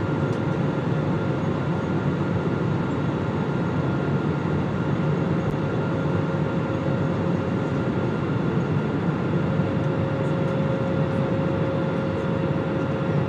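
Steady airliner cabin noise: an even rush with a low hum and two faint steady tones, heard inside the cabin before takeoff.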